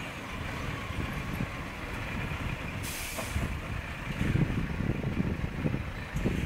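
Scania R420 truck's diesel engine running with a steady low rumble, and a short hiss of compressed air about three seconds in.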